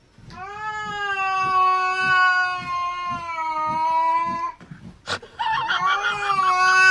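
Cat yowling in two long, drawn-out calls, each held on a steady pitch that sags slightly. The first lasts about four seconds; the second starts about five seconds in, just after a short sharp click.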